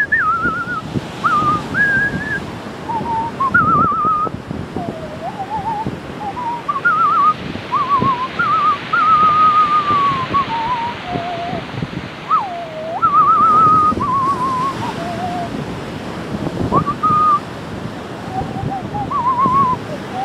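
A man whistling a tune in short melodic phrases with a wavering vibrato, over the steady wash of sea waves on a breakwater.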